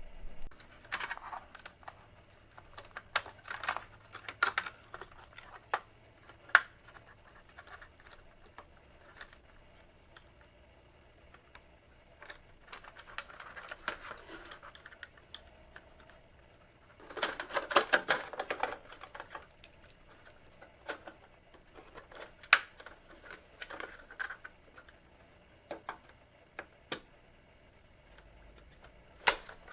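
Irregular clicks, taps and scraping from hands working on the plastic lamp holders and metal parts of a fluorescent shop-light fixture. There is a denser run of rattling clicks a little past the middle, with quieter gaps between the bursts.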